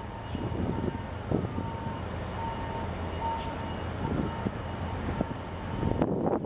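Steady low rumble with a faint thin whine from a giant container ship (the 23,820 TEU HMM Stockholm) passing close by at harbour-entry speed, with wind gusting on the microphone. The gusts grow stronger near the end.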